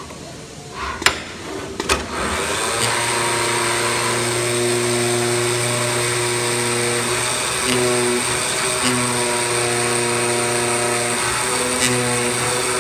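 Two sharp clicks, then about two seconds in a flatbed CNC digital cutter starts running with a steady motor hum and a constant high whine. The hum shifts in pitch briefly a few times as the cutting head moves over the PVC sheet.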